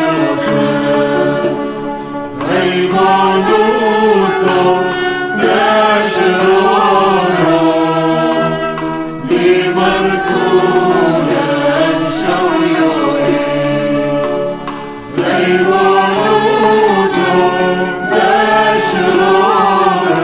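Background music: a solo chanted vocal melody over a steady low held tone, sung in phrases of a few seconds each with short breaks between.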